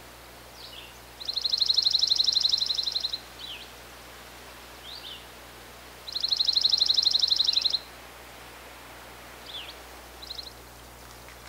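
A songbird singing a fast, even, dry trill about two seconds long, twice, with short falling call notes between the trills.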